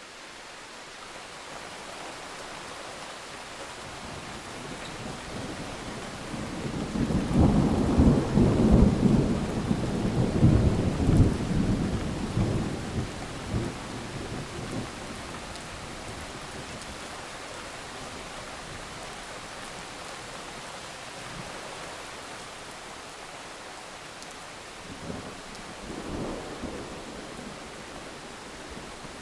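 Thunderstorm: steady rain hiss, with a long rolling thunder rumble swelling up about six seconds in, peaking around eight to eleven seconds and dying away by about fifteen, and a fainter, shorter rumble near the end.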